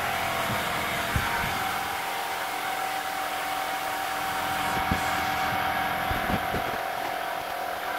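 Air compressor running steadily, supplying air to a homemade smoke machine that is pushing smoke through a car's EVAP system. A few light knocks sound over the hum.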